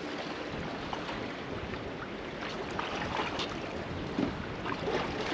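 Steady wind and sea noise around a small drifting boat, with wind buffeting the microphone and a few faint short sounds scattered through it.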